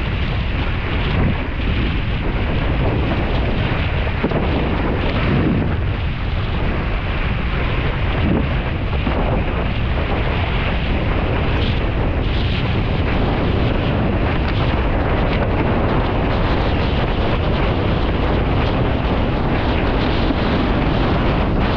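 Strong wind buffeting the microphone of a camera on a windsurfing rig sailing at speed, over a steady rush of water and chop against the board.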